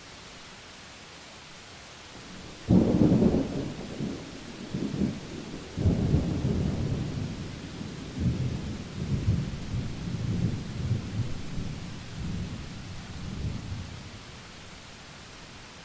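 Thunder over the steady hiss of rain: a sudden clap about three seconds in, a second surge near six seconds, then a deep rumble that rolls on and dies away by about fourteen seconds.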